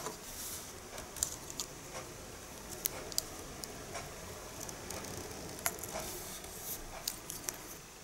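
Faint, scattered ticks and crinkles of metal tweezers picking at and peeling a thin protective plastic foil off the metal logo badge of an EK M.2 heatsink.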